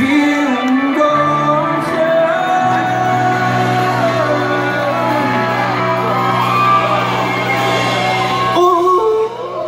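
Live band music in a concert hall: a steady held bass with sustained keyboard chords, with singing and shouts or whoops over it. The bass drops out near the end, leaving a gliding voice-like line.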